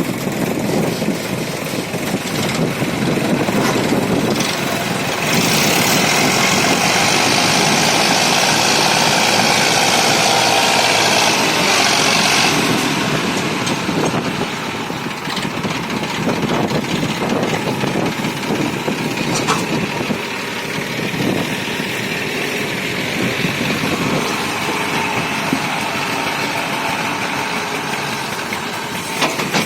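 Diesel tractor engine running steadily. A loud, even hiss joins about five seconds in and stops abruptly some seven seconds later.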